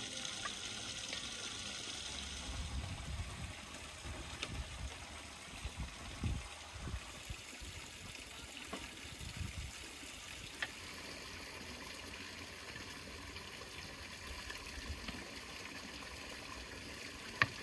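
Steady running water of a stream, with a few soft knocks and clicks from a wooden spatula and hands serving stuffed vine-leaf and cabbage rolls out of a large metal pot.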